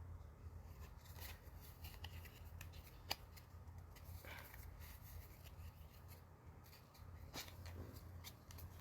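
Faint rustling and light clicks of trading cards being handled, with one sharper click about three seconds in, over a faint low hum.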